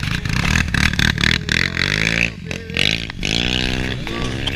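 Quad ATV engine revving up and down twice, with wind buffeting and rushing over the microphone.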